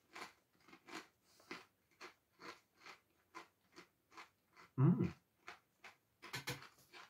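A Smith's Double Crunch crisp being chewed with the mouth closed: short crunches at about two a second, with one louder, deeper sound about five seconds in.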